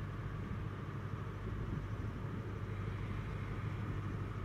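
Class 43 HST power car's MTU diesel engine running as the train creeps slowly into the platform: a steady low hum with a faint higher whine above it.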